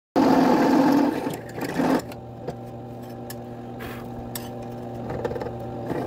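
Drill press with a step drill bit cutting through a 16-gauge sheet-metal plate: a loud grinding for about the first two seconds. Then the bit runs free and the press motor hums steadily, with a few light ticks.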